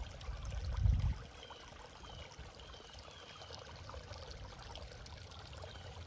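Small spring-fed creek flowing steadily over rocks, a gentle even water sound, after a low muffled rumble in the first second.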